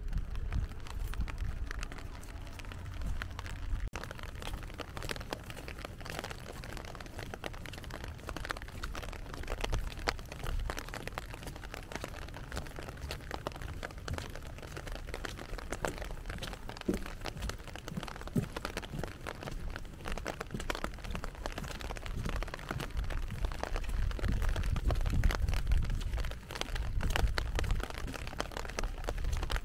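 Steady rain falling, with a dense spray of small drop hits. A low rumble underneath grows louder near the end.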